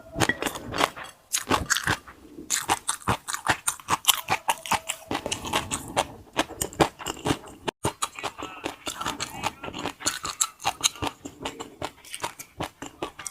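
Close-miked crunchy chewing and biting: a rapid, irregular run of crackling crunches.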